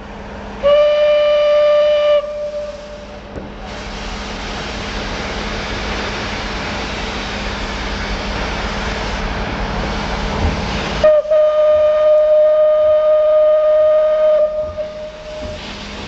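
Steam locomotive whistle blowing one steady note for about a second and a half. Then a loud hiss of steam venting beside the front locomotive, Südbahn class 29 No. 671, for several seconds. Then a long whistle blast of about four seconds, on the same note.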